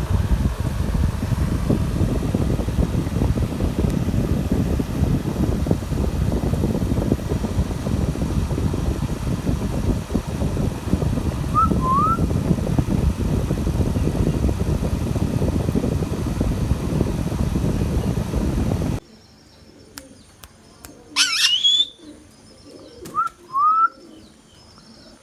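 A steady, loud low rumble of noise, with two faint chirps about twelve seconds in. Near the end it cuts off suddenly, and a rose-ringed parakeet gives a sharp rising call followed by two short chirps.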